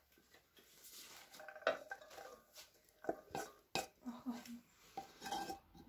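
Cookware knocking and scraping as a frying pan is tipped over a saucepan and emptied, fried mushrooms, ham and peas dropping in, with several sharp clinks of metal.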